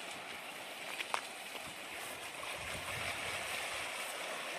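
Small waves washing against a rocky shore: a steady rushing hiss, with a couple of faint clicks about a second in.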